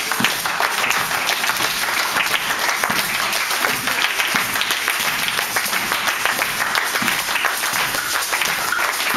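A roomful of people clapping their hands together, many claps overlapping into a dense, continuous patter.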